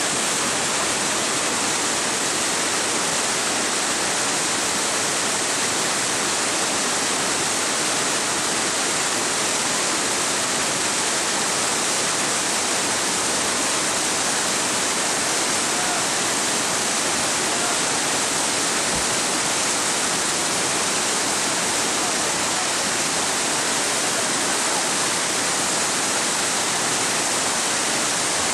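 Steady rush of fast whitewater rapids, churning foaming water over rocks, an even unbroken noise.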